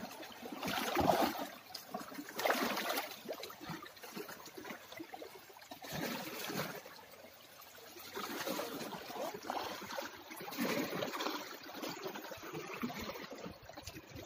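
Water splashing and trickling in uneven surges every second or two, with small crackles throughout.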